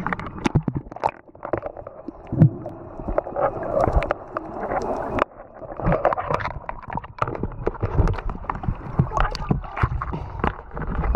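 Seawater sloshing and gurgling around a camera at the sea surface and dipping underwater, heard as a muffled, dull rush with many scattered knocks and bumps.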